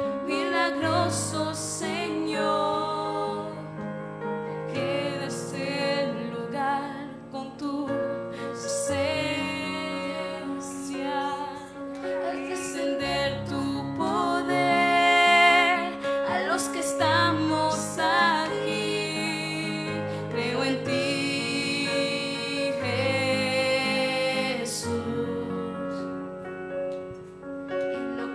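Live worship song: a woman sings while playing a Roland digital piano, and a boy sings along into a handheld microphone.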